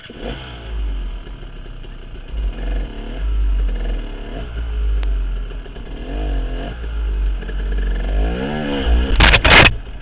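Dirt bike engine blipped and revved over and over, its pitch rising and falling, as the bike works up a rock ledge. About nine seconds in there is a short loud clatter, the bike banging and scraping on the rocks.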